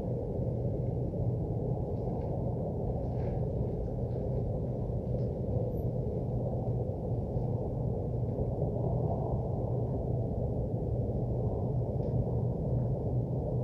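Steady low mechanical rumble with a constant hum, unchanging throughout. This is the nuisance noise that nearby businesses make, as recorded by a resident complaining of it.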